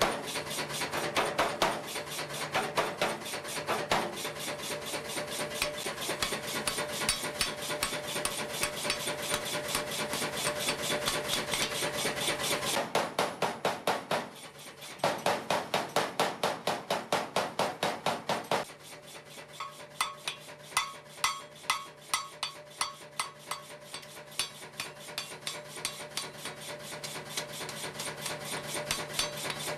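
Blacksmith's hammer striking a red-hot iron bar on the anvil in fast, even runs of blows. The later strikes carry a clear ring. A steady low hum runs underneath.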